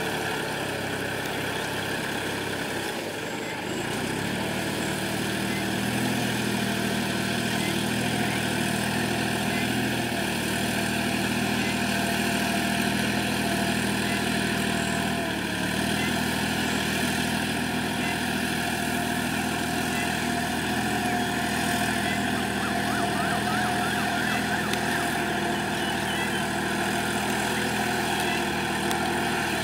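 Kubota farm tractor's diesel engine running steadily under load as it plows a flooded rice paddy, with a thin whine above the engine note through the middle.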